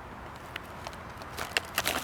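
Faint steady background, then from a little over a second in, the crinkling and crackling of plastic MRE ration packets being handled.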